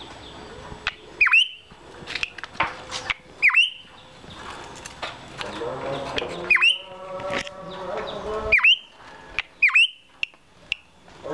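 Drongo (sri gunting) calling: a loud, sharp note that swoops down and then flicks back up, repeated about five times at intervals of one to three seconds.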